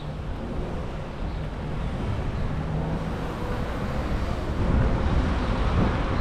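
Outdoor ambience with wind rumbling on the microphone and a faint steady hum, growing louder about four and a half seconds in.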